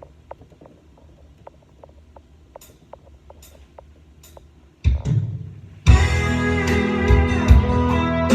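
Instrumental intro of a rock ballad backing track. Faint scattered ticks give way to one loud hit near five seconds in, and about a second later the full band with guitar and drums comes in.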